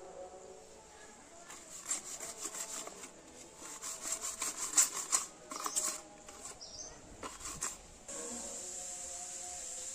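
Trowel and hand scraping and rubbing wet cement mortar while smoothing the rim of a freshly cast cement flower pot, in irregular short strokes. About eight seconds in the scraping stops and a steady hiss is left.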